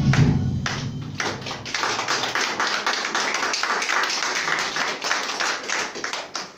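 Audience applauding, many hands clapping. Music ends about a second and a half in, and the clapping carries on alone.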